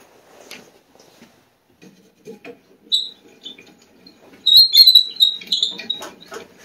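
Handling noise at the table saw, rustling and light knocks, as the wooden jig is worked on the rip fence, with a run of short high squeaks, the loudest part, starting about four and a half seconds in.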